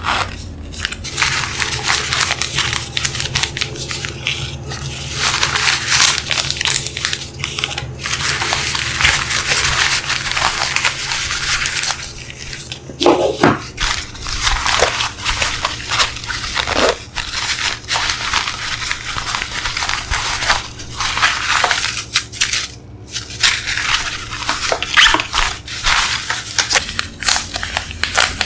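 Product packaging being handled and opened: continuous crinkling and rustling of plastic and cardboard, broken by many small clicks and knocks.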